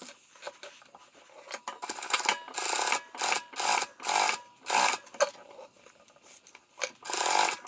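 Sewing machine stitching a straight seam across layered cotton fabric, run in a string of short bursts from about two seconds in, with a longer run near the end.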